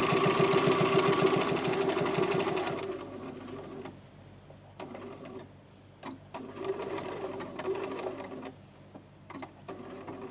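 Sewing machine stitching through felt: fast, even running for about three seconds, then it stops and runs only in a few short, slower spurts, with scattered clicks.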